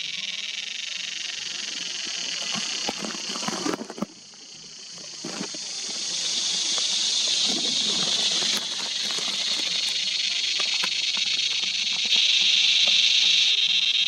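Large Australian tree cicada singing: a loud, continuous high-pitched buzz. It cuts out sharply about four seconds in, builds back up over the next few seconds, and swells louder again near the end.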